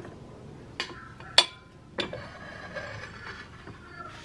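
Dishes clinking as a plate holding a soup bowl is handled: three sharp knocks, the loudest about a second and a half in, ringing briefly.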